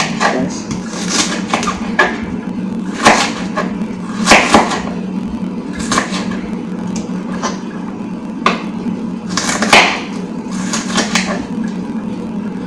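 Kitchen handling sounds: irregular knocks and clicks, about a dozen scattered through, over a steady low hum.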